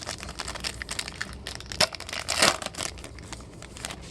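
Crinkling and tearing of a Topps Chrome baseball card pack's wrapper as it is ripped open, with cards handled, in a dense run of crackles that peaks about two seconds in and thins out near the end.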